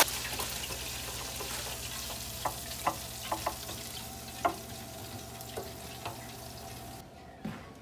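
Steady sizzle of hot oil frying food, with a few light clicks of metal tongs and utensils. The sizzle stops about a second before the end.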